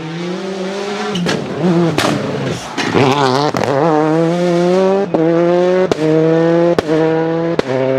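Škoda Octavia WRC's turbocharged four-cylinder rally engine revved hard, wavering up and down and then held at steady high revs. It is broken by several sharp cracks about once a second, the anti-lag system's backfires, with the engine note dipping briefly at each one.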